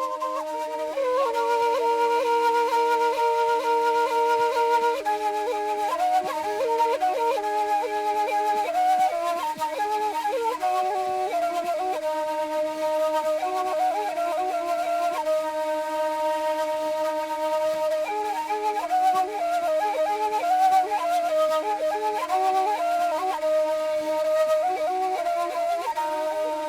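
Traditional Shimshal flute playing a slow, ornamented melody of held notes and quick trills over a steady low drone note.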